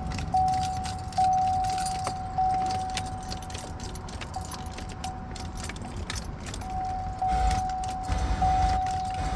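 2015 Chevy Suburban's dashboard warning chime sounding as one steady high tone with a few short gaps, stopping about six seconds in and starting again a second later, with keys jangling. The starter makes no cranking sound: the truck won't crank.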